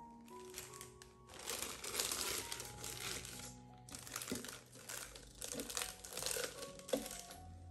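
Thin plastic bag crinkling as it is pushed down into a plastic cup and folded over the rim, in two long stretches with a short break a little before the middle. Soft piano music plays underneath.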